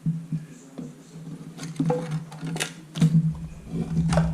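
Plastic slot-car kit parts and packaging being handled: irregular clicks and crinkles, loudest in a cluster around the middle and again near the end, over a steady low hum.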